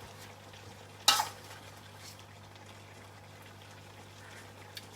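Shrimp frying in butter and garlic in a pan, a faint steady sizzle, with one sharp clink of a utensil against the pan about a second in.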